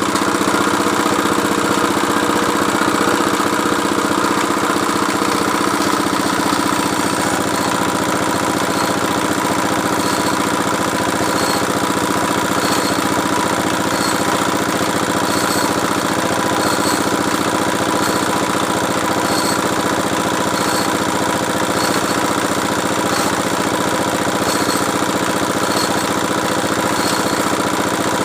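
Engine of a water-well drilling machine running steadily, with a hum that shifts slightly about six seconds in and a faint regular ticking.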